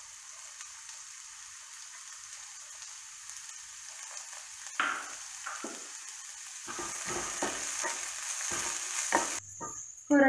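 Chopped onion sizzling in hot coconut oil in a pan, a steady hiss. From about halfway a spatula knocks and scrapes in the pan as the onion is stirred, the first knock the loudest.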